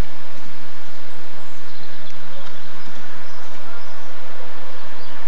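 Miniature railway locomotive running along the track towards the camera: a steady low hum over a constant hiss, with faint bird chirps.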